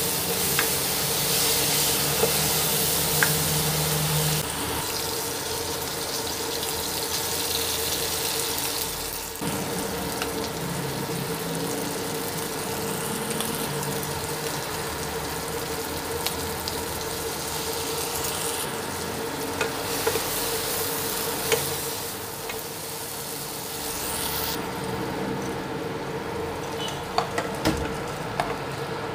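Diced tomato, carrot and egg sizzling in a nonstick frying pan while a spatula stirs and scrapes, with a steady hum underneath. The sizzle is strongest in the first few seconds and thins near the end, where a few light knocks come as cooked rice is tipped into the pan.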